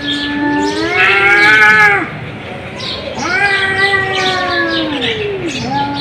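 Cat yowling: long, drawn-out wavering calls that rise and fall in pitch, the loudest about a second in, a second long call in the middle and a third beginning near the end.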